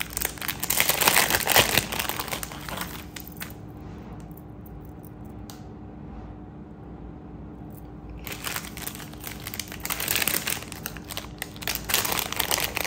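Thin white plastic jewellery pouches crinkling as they are handled and unwrapped, loudest in the first few seconds and again from about eight seconds in, with a quieter stretch in between. A faint steady hum runs underneath.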